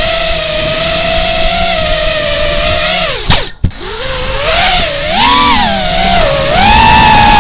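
FPV quadcopter motors whining, heard through the onboard action camera's microphone. The pitch holds steady, drops sharply and breaks off briefly about three and a half seconds in, then rises and wavers with the throttle.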